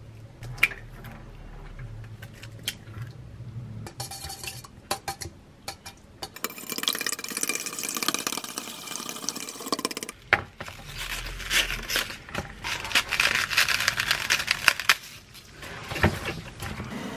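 Eggs cracked into a stainless steel mixing bowl, then beaten quickly with a utensil: a dense run of rapid clinks against the metal and wet sloshing of the egg mixture. Near the end, a clack as cabbage leaves are handled in a plastic bowl.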